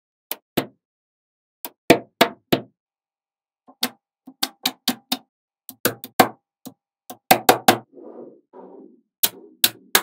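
Small spherical magnets (magnetic balls) snapping together with sharp clicks, in irregular groups of one to four, as rows and slabs of the balls are pressed onto one another. Two brief softer, duller sounds come about eight seconds in.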